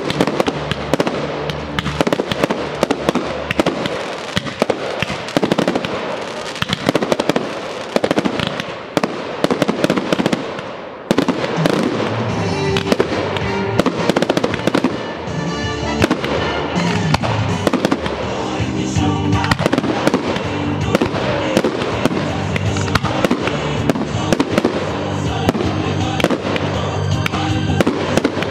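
Fireworks display: shells and comets bursting and crackling in dense, rapid succession over music played for the show. About 11 seconds in the bangs thin briefly and the music shifts to a lower passage.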